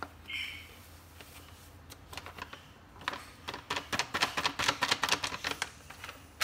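Plastic packet of pancake mix crinkling as it is shaken to pour the powder into a glass bowl, with a rapid run of crisp crackling clicks, about eight a second, starting about three seconds in and lasting a couple of seconds.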